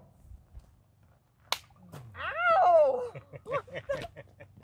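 A sharp slap about one and a half seconds in, then a loud cry whose pitch falls over about a second, followed by short voiced sounds.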